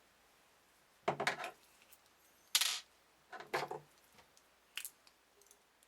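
A few short handling clicks and clatters of screws and metal parts as the graphics card is being fixed to the case. There are four separate sounds, the sharpest about halfway through, with quiet between them.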